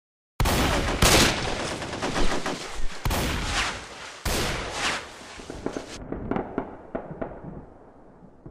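Gunfire that starts suddenly: a dense, loud run of rapid shots with several heavier reports in the first five seconds. It then thins to fainter, scattered shots that die away near the end.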